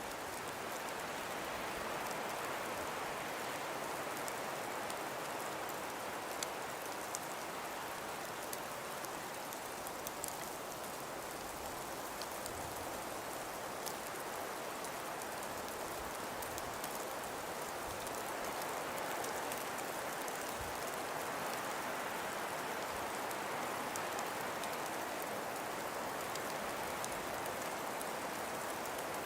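Wind and falling snow in a winter storm: a steady soft rush that swells and eases slowly, with faint scattered ticks of flakes or ice striking a surface.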